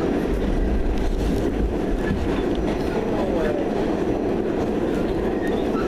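Subway train running, heard from inside the car: a steady, continuous rumble of the car and its wheels on the rails, heaviest and deepest in the first couple of seconds.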